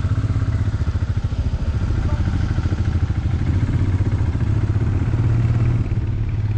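Royal Enfield Himalayan's single-cylinder engine running as the motorcycle rides along, a steady, fast low beat of firing pulses.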